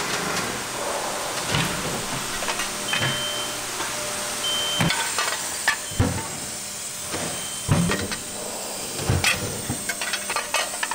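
Metal clanking as aluminium frying-pan bodies and perforated metal base discs are handled and set up at a press, a sharp knock every second or two over a steady machine hiss, with a few short high tones.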